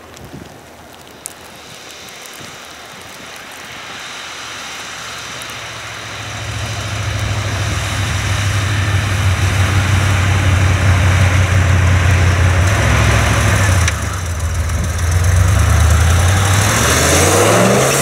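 A motor vehicle's engine grows louder over the first several seconds and then runs steadily. Its pitch climbs in steps near the end, with wind noise throughout.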